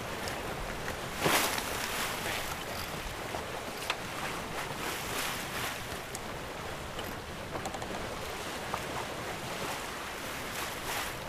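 Water rushing along the hull of a C&C 39 sailboat under sail, with wind buffeting the microphone. A louder surge comes about a second in.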